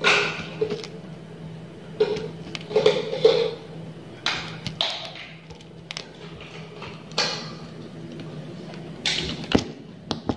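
Irregular sharp taps from aari bead embroidery: the hooked aari needle clicking against a plastic lid as it picks up sugar beads, and punching through fabric stretched taut on the embroidery frame. A steady low hum runs underneath.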